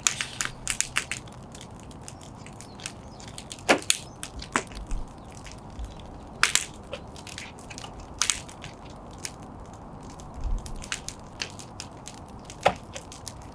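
Wood fire crackling: irregular sharp pops and snaps of burning firewood over a faint steady background noise.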